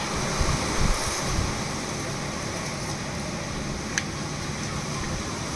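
Steady background hiss and hum, with a few low bumps from handling the small wireless mic in the first second and a half and a single sharp click about four seconds in.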